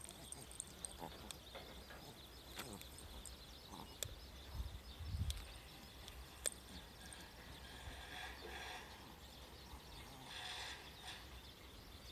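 Faint footsteps and scattered light clicks of a person and a small dog walking on a paved farm road, with a brief low rumble about five seconds in.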